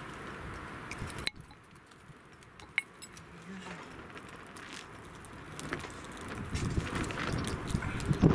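Wooden kindling sticks and tinder being set by hand into a small steel fire pit: light clicks and clinks of sticks against each other and the metal, with rustling. The sound drops off suddenly about a second in, and the handling grows busier again in the second half.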